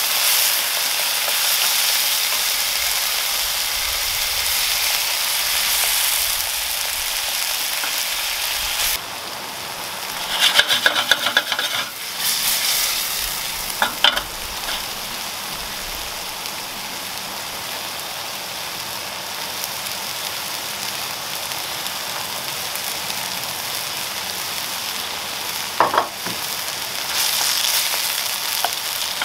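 Minced beef and tomato sauce sizzling steadily in a frying pan on a gas burner. A wooden spoon stirs and scrapes through it, with a few short clattering knocks against the pan.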